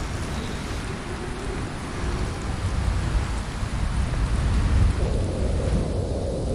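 Strong snowstorm wind blasting against the microphone: a gusting low rumble under a steady hiss of blowing snow. About five seconds in the hiss drops away and the sound turns duller.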